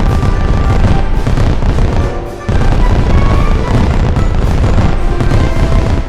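A dense run of fireworks going off in quick succession, booms and crackles with a heavy low thud, over background music. It dips briefly and then comes back in full about two and a half seconds in.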